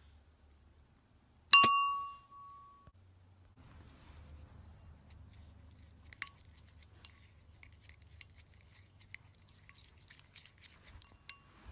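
A white ceramic bowl is struck once, sharply, with a ringing clink that fades over about a second. From about halfway, light, quick, irregular clinks and taps follow as the blue colouring is stirred into the liquid in the bowl.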